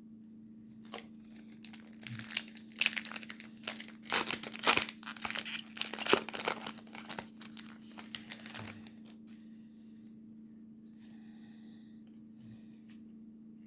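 A trading-card pack's foil wrapper being torn open and crinkled by hand: a run of crackling starting about a second in, loudest in the middle, and dying away after about nine seconds.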